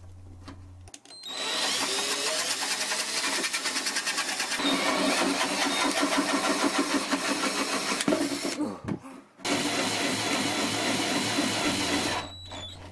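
Cordless drill with a wood-boring bit cutting a hole through a plastic enclosure lid, the bit shaving the plastic. It runs steadily from about a second in, stops briefly near nine seconds, then runs again until about twelve seconds.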